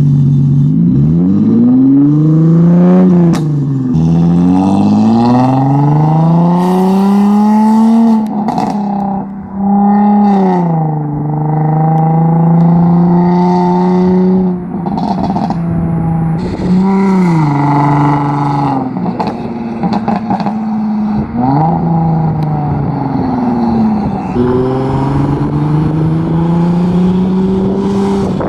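Infiniti G35's VQ35DE V6 through a new custom single-exit exhaust, run hard: the engine note climbs, drops sharply at each gear change and climbs again, several times over, with a few stretches where it holds steady.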